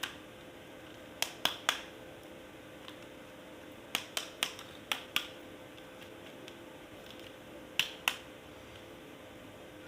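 Sharp plastic clicks and snaps from toy pieces being handled, in quick groups of two to five, over a faint steady hum.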